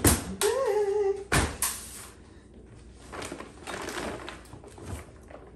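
Groceries being unpacked from reusable shopping bags onto a stainless steel table. There are a few sharp knocks in the first second and a half, then softer rustling and handling.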